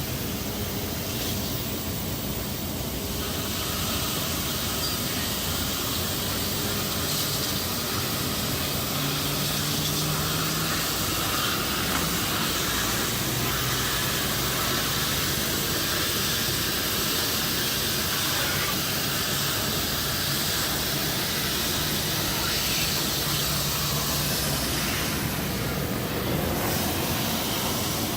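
Automatic car wash machinery running around the car, heard from inside the cabin: a steady rushing hiss with a low hum that comes and goes.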